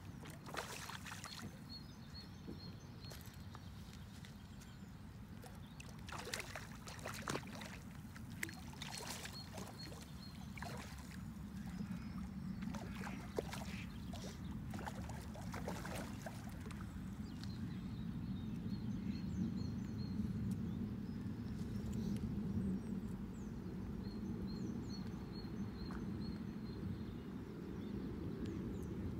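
A hooked trout splashing and thrashing at the surface, in short bursts on and off through the first half, as it is played and netted, over a steady low rumble that grows louder in the second half.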